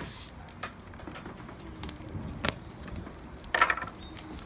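Wood burning in a bonfire, giving scattered sharp pops and cracks, with a short rustling burst about three and a half seconds in.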